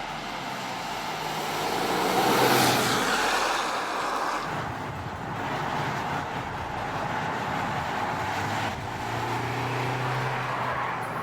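Audi Q2 compact SUV driving: engine and road noise swelling to its loudest about two and a half seconds in, then the engine running on with a steady low drone.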